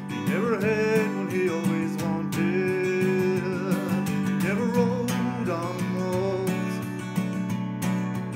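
Acoustic guitar strummed in a steady folk rhythm, with a held, wavering melody line sliding in pitch over the chords.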